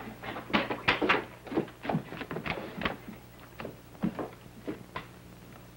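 Scuffle of a struggle between men: an irregular run of short cries and knocks, which thins out and stops about five seconds in.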